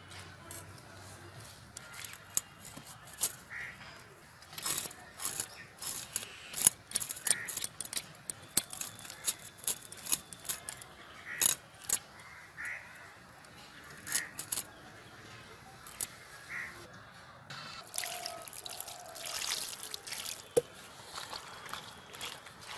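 Climbing perch being cleaned by hand, coated in ash and scraped against a curved boti blade to take off the scales: irregular sharp scrapes and clicks, with a denser rustling hiss near the end.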